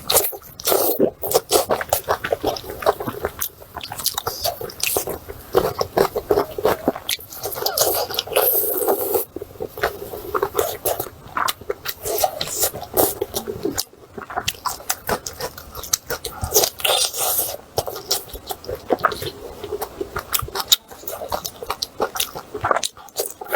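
Close-miked mukbang eating sounds: wet chewing, biting and smacking of lamb intestine wrapped around meat. The sounds come as dense, irregular clicks and crackles, with brief pauses about a third and again about seven-eighths of the way through.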